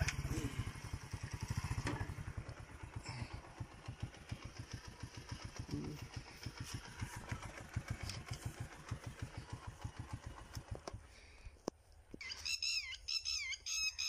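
A small engine running with a low, rapid thumping that fades away about eleven seconds in; birds chirp near the end.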